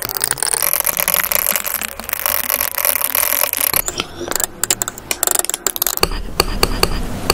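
Metal palette knife scraping and smearing thick acrylic paint against a plastic palette: a continuous wet scraping with scattered clicks and taps of the blade on the plastic, breaking off briefly about four seconds in and again about six seconds in.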